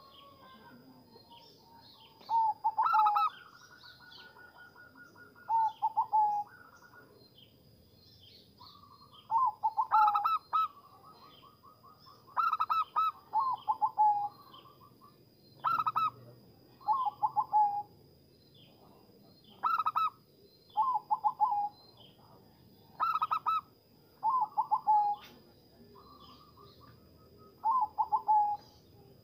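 Zebra dove (perkutut) cooing: short, rapidly trilled phrases, some with a fast rolling trill, repeated every two to three seconds.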